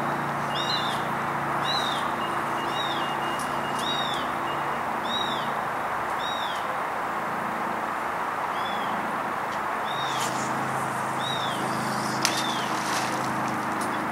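A bird calling over and over, a short arched chirp about once a second, over a steady hiss and a low steady hum.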